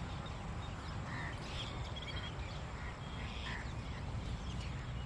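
Several birds calling in a garden: scattered short chirps and a few quick falling whistles, over a steady low rumble.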